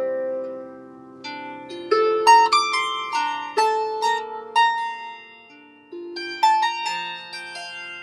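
Solo harp: plucked notes and small chords that ring on after each pluck, played in unhurried phrases with brief pauses between them.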